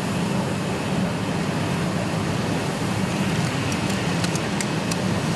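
A fully engulfed semi-truck fire burning: a steady rushing noise with a low hum underneath, and a few sharp crackles near the end.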